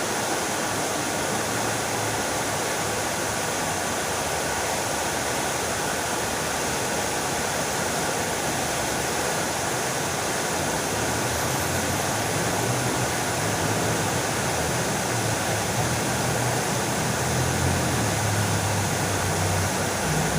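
Fountain water splashing and falling in a steady rush. A low rumble creeps in under it about halfway through and grows toward the end.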